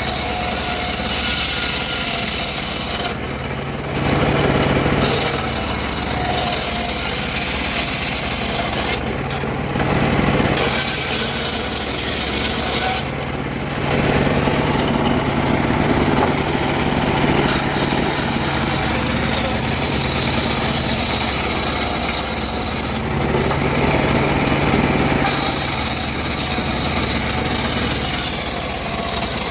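Power saw cutting wood in repeated passes, the blade's hiss rising through each cut and falling away between cuts while the motor keeps running steadily.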